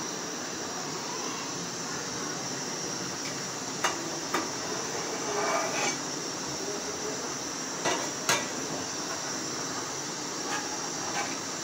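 A slotted metal skimming spoon knocks against a metal pot, two pairs of sharp knocks about 4 and 8 seconds in, as foam is skimmed off the dal. Under the knocks runs the steady hiss of the dal boiling hard on high heat.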